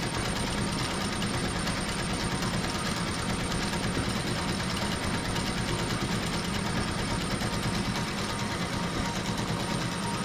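HSW 12-needle high-speed embroidery machine running, stitching with a steady, rapid mechanical rhythm.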